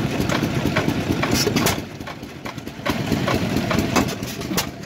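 Small hopper-cooled, single-cylinder petrol stationary engine with twin open flywheels running slowly, with sharp clicks. Louder spells of about a second alternate with quieter ones.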